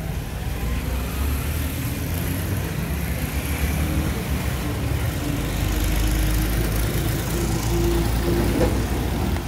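A motor vehicle engine idling, a steady low rumble with a faint hum over it, among street traffic.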